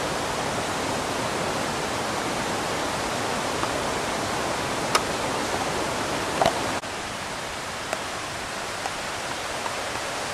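Steady rushing of a forest waterfall, with a couple of brief clicks about halfway through; the rush drops a little in level about seven seconds in.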